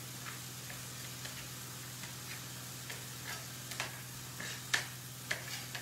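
Chef's knife dicing tomatoes on a plastic chopping board: irregular taps of the blade against the board, the loudest a little under five seconds in, over a steady low hum.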